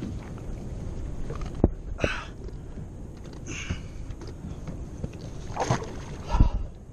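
Wind rumbling on an action camera's microphone out on open water, broken by a few sharp knocks and short hissing noises as a caught giant trevally is handled aboard a kayak.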